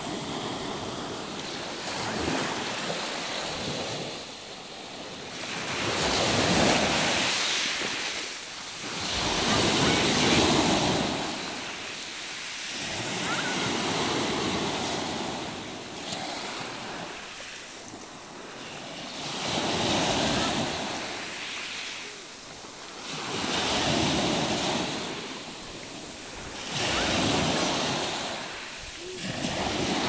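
Small sea waves breaking and washing up over a pebble beach, each surge swelling and falling away every three to four seconds.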